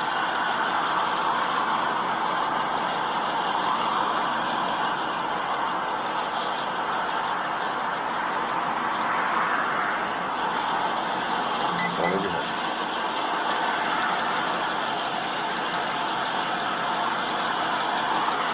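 Steady hum of a car engine idling close by, swelling and fading a little, with one short click about twelve seconds in.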